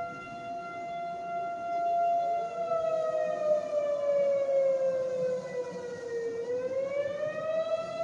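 Outdoor civil defense warning siren sounding its monthly test tone: a steady wail that sags lower in pitch from about two and a half seconds in and climbs back to its first pitch near the end.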